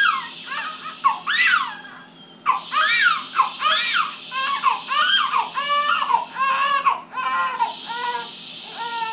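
A seven-day-old newborn crying in short, high squeals, about two a second with a brief lull about two seconds in, over a steady hiss.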